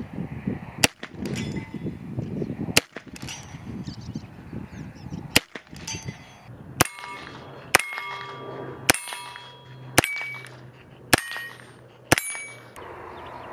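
A .22 rimfire single-action revolver with a 16-inch barrel firing single shots, about nine in all, spaced one to two and a half seconds apart. Several shots are followed by the short metallic ring of a steel target being hit.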